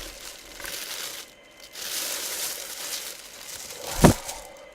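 Packing wrap crinkling and tearing in two bursts as a boxed helmet is unwrapped, then a single sharp thump about four seconds in.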